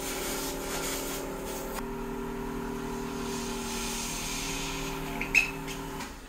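A steady mechanical hum at one constant pitch, cutting off suddenly about six seconds in, with a brief sharp click shortly before it stops.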